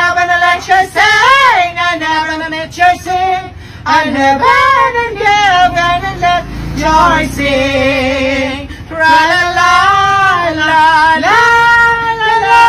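A high voice singing loudly, bending between notes and holding long wavering notes.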